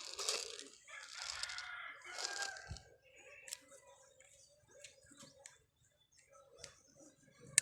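A rooster crowing about a second in, with faint rustling and scattered clicks around it.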